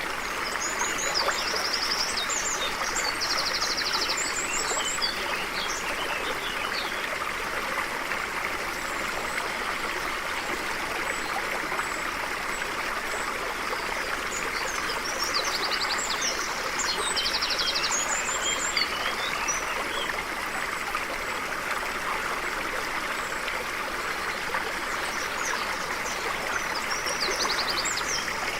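A stream flowing steadily, with a bird singing quick trills and chirps above it about a second in, again past the middle, and near the end.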